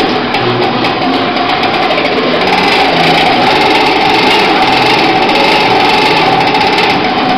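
Several intonarumori, Futurist noise-intoner boxes with horns, cranked together in a continuous buzzing, grinding drone that gets louder about two and a half seconds in.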